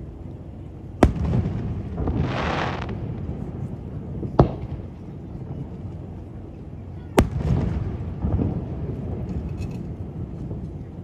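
Aerial firework shells bursting: three sharp bangs, about a second in, near the middle and about seven seconds in, each followed by a low rumble. A brief hiss comes about two seconds in.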